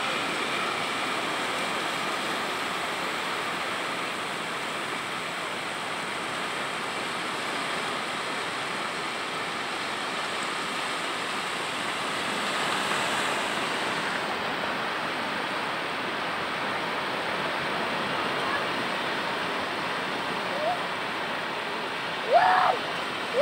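Steady wash of surf and shallow water running over a sandy beach, swelling a little about halfway through. Near the end, two short bursts of a person's voice.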